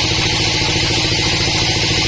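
A sawmill's engine running steadily, a fast even firing pulse under a strong hiss.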